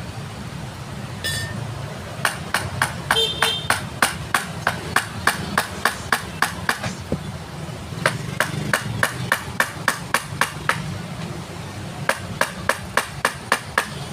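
Sharp metallic taps, about three a second, in three runs with short pauses between: a thin metal rod held as a punch against an electric sander's base plate and struck repeatedly with a hand tool.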